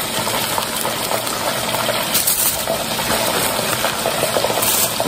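Chicken patties frying in hot oil in a Fry Daddy deep fryer: a steady sizzling hiss with small crackles.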